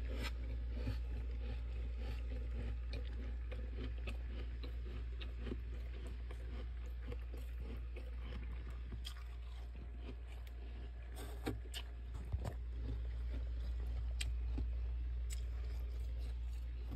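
Spoon scraping and crunching through thick freezer frost: a busy scatter of small crackles, with a few sharper ticks a little past halfway. A steady low hum runs underneath.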